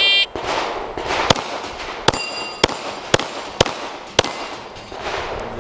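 A shot timer beeps briefly, then a 9mm Glock pistol fires a quick string of about nine shots, roughly two a second. Sharp metallic rings from steel plates being hit come in among the shots.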